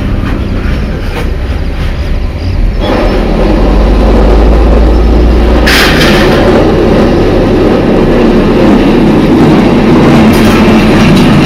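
A vehicle engine running with a low rumble and rattling noise, which grows louder about three seconds in, with a brief hiss-like burst near the middle.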